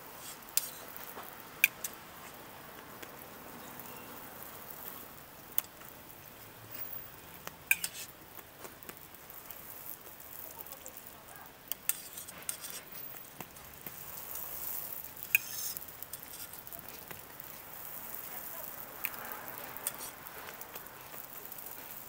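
Hotteok frying in oil on a flat steel griddle, a steady sizzle, with sharp metallic clicks and scrapes now and then as a steel hotteok press and spatula strike and slide on the griddle.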